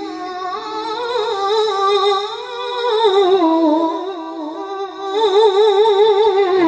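A male qari reciting the Quran in the melodic mujawwad style, drawing out long melismatic notes with a fast, even vibrato; the line slides down in pitch near the end.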